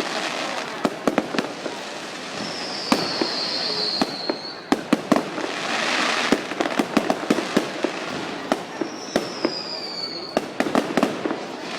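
Fireworks display: a dense run of bangs and crackles from bursting shells, with two high whistles from whistling fireworks, each falling slightly in pitch, about a quarter of the way in and again past the three-quarter mark. A short hissing burst comes midway.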